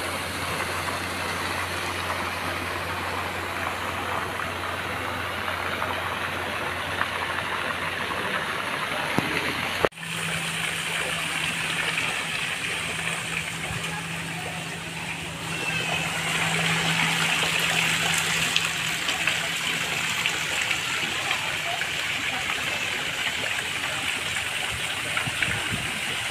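Water pouring steadily from an artificial rock waterfall and splashing into a pool, with a low steady hum beneath. About ten seconds in there is a brief break, then the water noise goes on over a somewhat higher hum that fades out around twenty seconds in.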